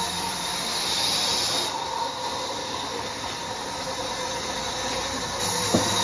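Large sawmill band saw running steadily as a log slab is fed through it, a continuous noisy whine of the blade cutting wood. A single sharp click near the end.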